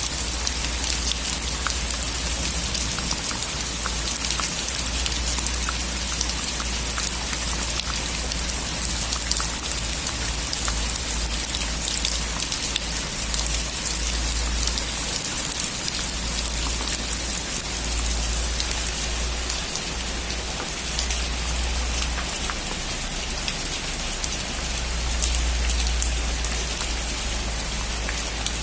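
Heavy rain falling steadily on a metal roof, countless individual drop hits over a dense hiss, with a low rumble underneath that swells and fades.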